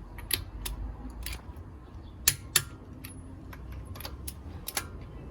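Click-type torque wrench tightening wheel lug nuts: a series of sharp metallic clicks, several coming in pairs, as the wrench ratchets and clicks over at the set torque.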